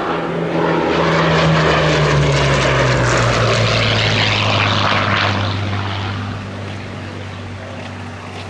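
Hawker Sea Hurricane's Rolls-Royce Merlin V12 engine and propeller in a flypast: the drone swells, drops in pitch as the aircraft passes, then fades.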